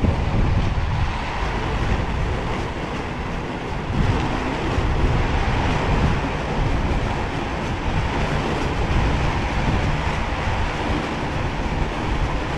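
Roller skate wheels rolling steadily over paved ground: a continuous low rumble with a rough hiss above it.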